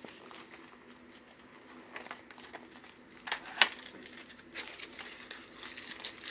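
Cardboard product box being handled and opened by hand: faint rustling and scraping of paperboard, with a sharp click about three and a half seconds in.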